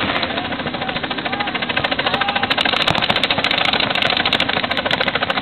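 Rapid, continuous popping of paintball markers firing many shots a second, growing sharper and denser about two seconds in.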